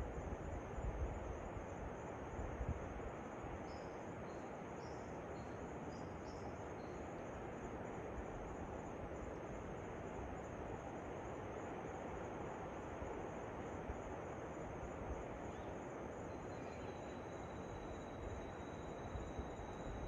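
Steady rush of a waterfall under a continuous high, pulsing insect drone. A few short, high bird notes come between about 4 and 7 seconds in, and a thin steady whine starts near the end. A few low bumps come in the first couple of seconds.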